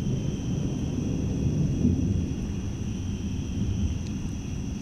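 Thunder rumbling low and rolling, slowly dying away toward the end.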